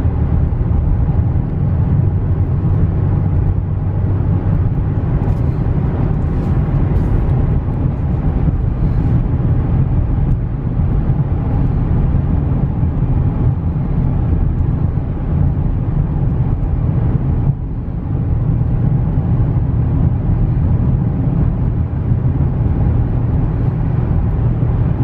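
2016 GMC Canyon 4x4 pickup on a test drive, a steady low engine and road hum, with a brief dip in level about two-thirds of the way through.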